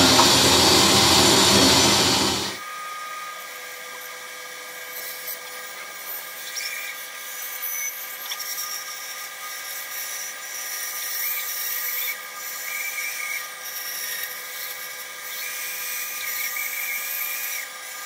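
Band saw running, its blade cutting curved ring kerfs through a glued-up cedar blank. The sound is loud and full for the first two seconds or so, then drops sharply to a thinner steady whine, with the cutting noise swelling now and then as the wood is fed into the blade.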